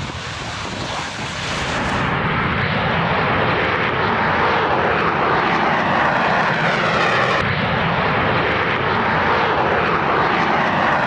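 Fixed-wing aircraft engines running loudly and steadily, growing louder about two seconds in, with faint tones in the roar sliding down in pitch.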